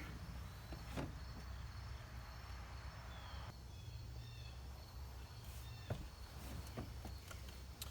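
Faint background ambience: a steady low hum with a few soft clicks and, about midway, some brief faint high chirps.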